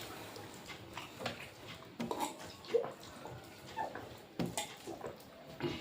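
Eating sounds: scattered short clicks, smacks and soft mouth noises of food being chewed and handled on a plate, a few every second or so.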